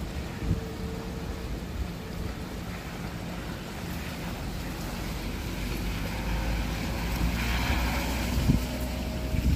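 Express bus driving past on a wet road: a low engine rumble with the hiss of tyres on wet pavement, growing louder as the bus comes closer, with wind noise on the microphone.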